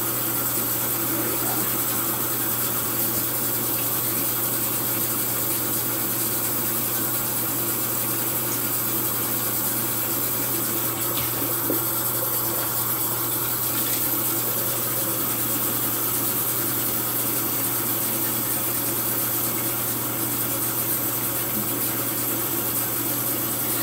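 Bathroom sink tap running steadily.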